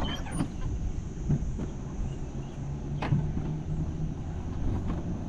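Jungle coaster cart running along its rail track, giving a steady low rumble with a short click about three seconds in.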